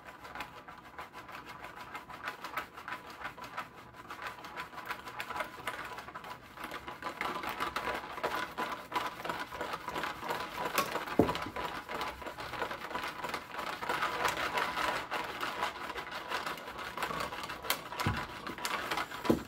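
Lego brick towers on a baseplate rattling in a fast, continuous clatter as the baseplate is shaken by hand, growing louder after the first third. A sharper knock comes about halfway through and another near the end.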